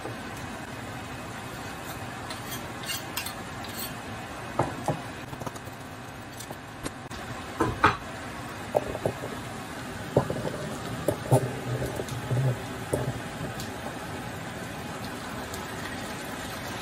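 Diced potatoes and onion frying in plenty of olive oil in a non-stick frying pan, a steady sizzle, while a knife and then a black slotted spatula scrape and knock against the pan as the onion is tipped in and stirred through. The loudest knock comes about eight seconds in, with a run of smaller clinks a few seconds later.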